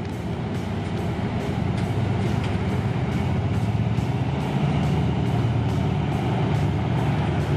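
GE diesel-electric locomotive of the State Railway of Thailand's GEA class running as it hauls a passenger train slowly toward the listener. Its engine drone grows steadily louder as it comes closer.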